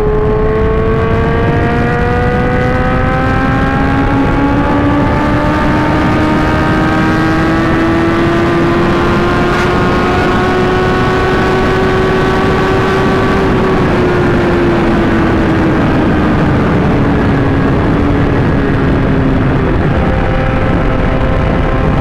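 Sport bike's inline-four engine running at highway speed under heavy wind rush. Its pitch climbs slowly for about thirteen seconds under steady throttle, then eases down a little and holds.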